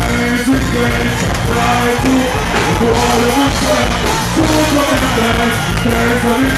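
Dancehall music played loud through a concert sound system, with a voice singing over the beat, heard from within the crowd.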